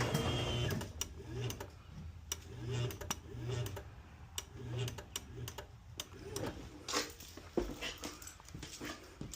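Chamberlain belt-drive garage door opener motor running, then stopping about a second in. It is followed by a series of short motor jogs, about a second apart, with sharp clicks in between, as the door is nudged up to set the opener's upper travel limit.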